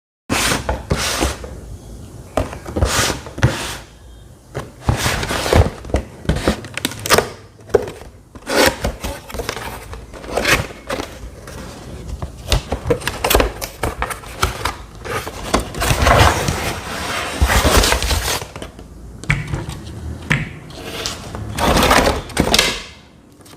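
Irregular handling noise: a dense run of clicks, knocks and rustles as objects are picked up and moved about, with no steady motor sound.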